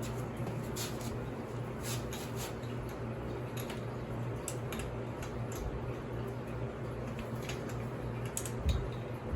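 Scattered light clicks and taps of hand tools and metal parts being worked on a motorcycle front end, over a steady low hum, with one dull thump near the end.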